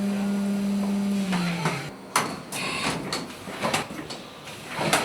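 CNC milling machine spindle running with a steady hum, then winding down in pitch and stopping about a second and a half in. Several sharp mechanical clunks and clicks follow.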